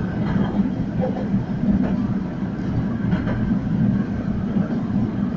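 Tram in motion heard from inside the passenger cabin: the steady rumble of its running gear on the rails, with a couple of faint clicks about two and three seconds in.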